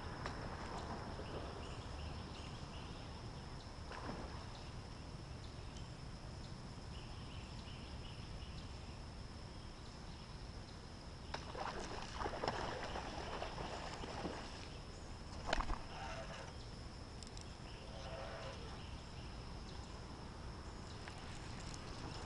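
River ambience from a kayak: birds calling now and then over a faint steady high whine. A rod and topwater lure are being worked, making a few short splashy bursts, loudest about halfway through, with one sharp splash a few seconds later.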